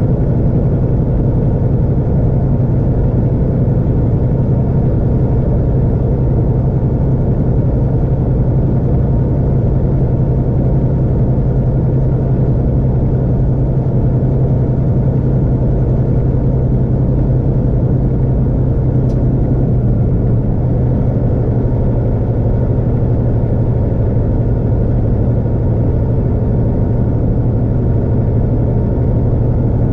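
Vehicle engine and tyre road noise at steady freeway speed: a constant low drone that holds unchanged throughout.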